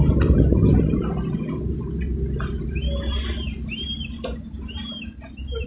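Water rushing and splashing, loud at first and fading over the first couple of seconds. Then four short high chirps follow, each rising and falling, about a second apart.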